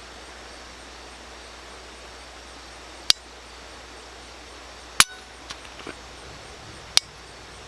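Three single 9mm shots from a Glock P80 (a Gen 1-style Glock 17 pistol), fired slowly about two seconds apart, each trigger pull taken up to the wall and broken. Each shot is a short sharp crack.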